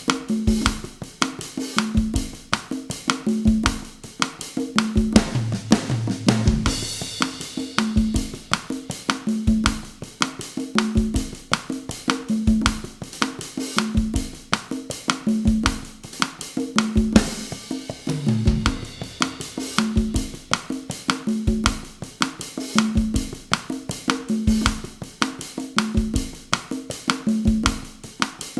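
Drum kit and congas playing a steady bossa nova groove at 160 beats per minute, the conga tones recurring in a repeating pattern under fast cymbal and rim strokes. A cymbal crash rings out twice, about seven and seventeen seconds in.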